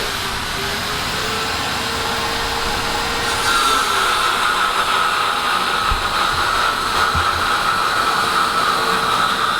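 Metalworking shop machinery running with a steady whine over a mechanical hum; the whine grows louder and brighter about three and a half seconds in.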